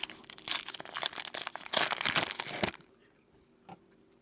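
Foil wrapper of a trading card pack crinkling as it is torn open and handled, stopping suddenly about two and a half seconds in. A faint click comes near the end.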